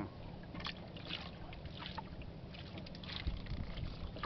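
Hands raking through a wet heap of mud and small shells in a wooden boat, picking out shrimp from the net's catch: scattered soft squelches and small clicks over a steady low hum.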